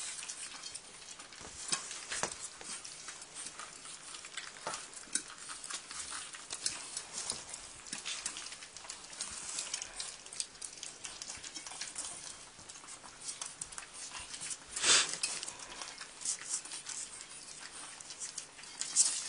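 Pug puppies moving and being handled on an absorbent puppy pad: scattered small clicks, crackles and rustles throughout, with one louder short noisy sound about three-quarters of the way through.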